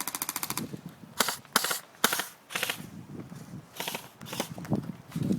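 Airsoft guns firing: a rapid full-auto burst of sharp clicks that stops about half a second in, then a handful of separate sharp cracks at irregular intervals.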